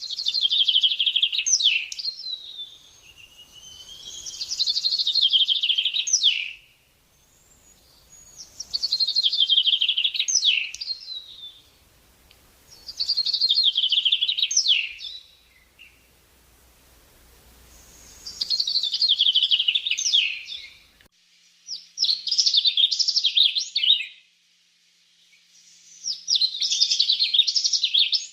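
A songbird singing: about seven bursts of rapid, high-pitched trilled song, each roughly two seconds long, with short pauses between them.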